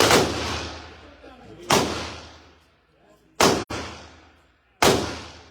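Four pistol shots fired one at a time, roughly one and a half seconds apart, each a sharp crack with a ringing echo that dies away over about a second.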